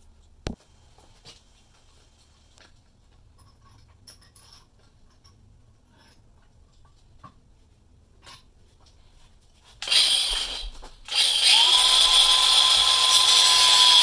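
Light clicks and knocks of handling for about ten seconds. Then a DeWalt cordless angle grinder starts, stops for a moment, starts again and runs with a steady whine as its disc cuts through a plastic bird-spike strip held in a bench vise.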